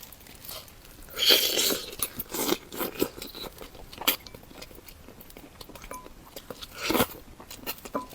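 Close-miked eating of spicy Sichuan-style bullfrog: irregular biting, crunching and wet chewing sounds, with a louder bite about a second in and another near the end.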